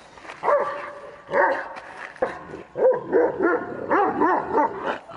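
Kangal shepherd dog barking repeatedly at wolves, a string of short barks that come quicker toward the end.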